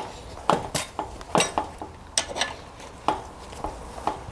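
Irregular sharp metal clicks and clinks from a wrench and two-jaw puller as the puller screw is turned, drawing a seized lawnmower blade adapter off the crankshaft.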